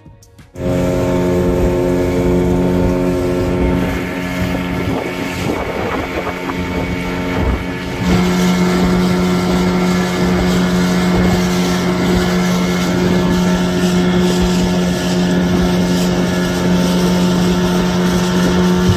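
Outboard motor of a small fibreglass fishing boat running steadily at speed, with wind buffeting the microphone. The engine note is rougher and partly masked for a few seconds in the middle, then steady again.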